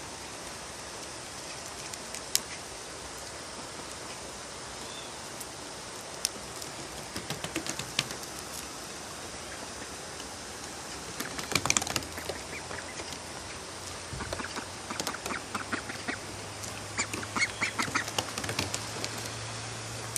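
White domestic ducks quacking in several short runs of calls, the loudest about halfway through, over a steady background hiss. A few sharp taps sound in between.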